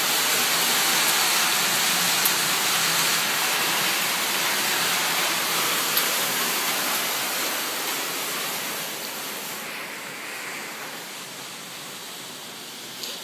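Heavy rain and hail coming down in a steady, loud hiss, with a couple of sharp ticks; it grows quieter from about eight seconds in.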